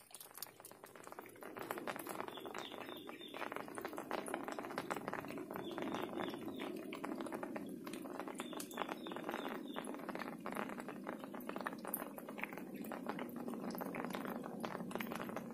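Light rain pattering: many small drops falling irregularly and close together over a steady wet hiss.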